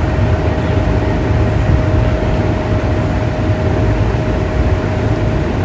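Airliner cabin noise in flight: the jet engines and rushing air make a steady low rumble and hiss, with one constant hum running through it.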